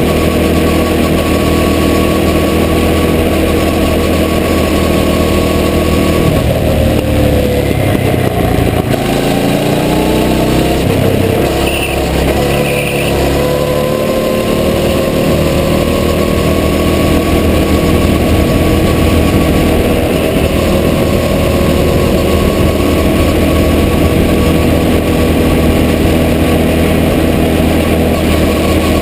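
Go-kart engine running at high revs, close up. About six seconds in the pitch falls as the kart slows, then from about eleven seconds it climbs back up as the kart accelerates, and holds steady for the rest.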